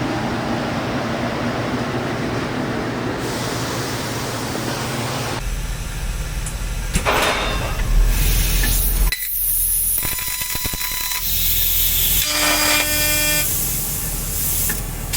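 Shop-floor noise of a fiber laser cutting machine at work: a steady hiss over a low rumble, changing abruptly several times, with a short pitched whine near the end.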